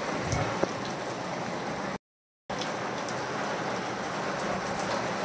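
Heavy rain falling steadily on a tiled courtyard, an even hiss with a few faint drop ticks. The sound cuts out completely for about half a second around two seconds in.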